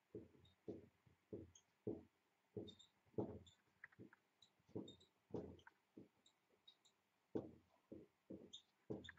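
Dry-erase marker writing on a whiteboard: a faint, irregular string of short strokes and taps, about two a second, with small squeaks from the felt tip.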